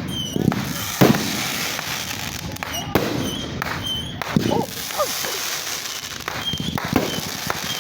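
Fireworks going off: several sharp bangs, one about a second in, another about 3 s in and one near the end, over continuous crackling from other shells.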